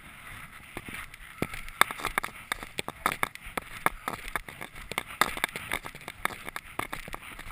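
Irregular crunches and clicks, several a second: footsteps on packed, icy snow, with knocks from the head-mounted camera being handled.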